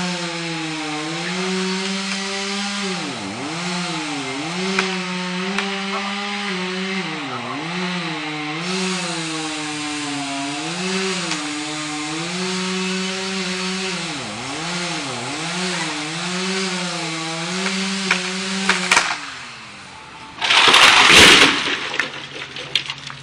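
Chainsaw running under load, its engine note sagging and recovering again and again as it bites into a dead tree. Near the end it stops abruptly, and about a second and a half later comes a short, loud crash as the felled tree hits the ground.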